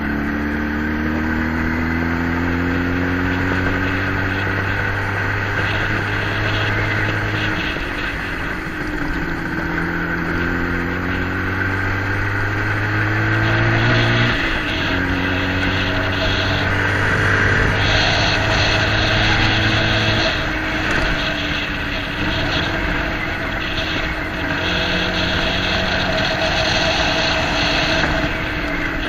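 A motor vehicle's engine running under way. Its pitch holds, climbs and drops off several times, about every six to seven seconds, as with gear changes or throttle changes, over a steady rattling road noise.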